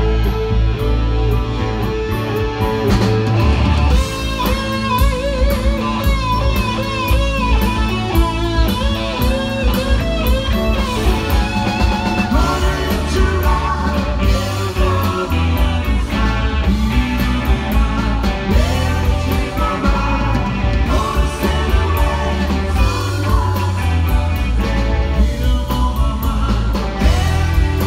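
Live rock band playing loud, with electric guitar to the fore over a heavy low end and cymbals.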